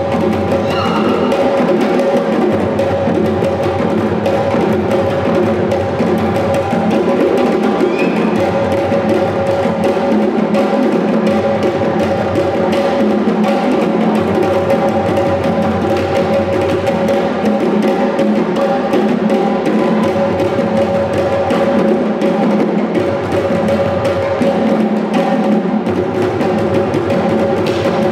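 West African drum ensemble playing a continuous rhythm: hand-played djembes over a dunun set of barrel drums struck with sticks, with no break.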